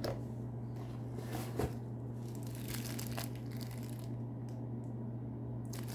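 Faint crinkling of packaging being handled, with a few small knocks, over a steady low hum.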